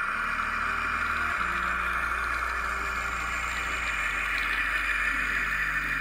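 Simulated diesel engine sound from the onboard sound unit of a Model Power HO-scale US Army switcher, playing through its small speaker as the locomotive crawls slowly along the track. It is steady, and its low engine note shifts pitch a few times.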